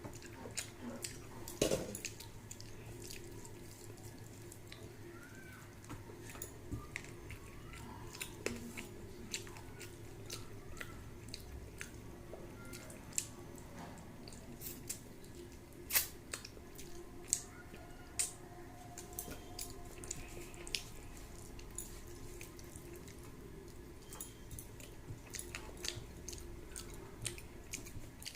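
Close-up eating sounds: wet chewing of rice and rohu fish curry, with many short, irregular mouth clicks and smacks. A steady low hum runs underneath.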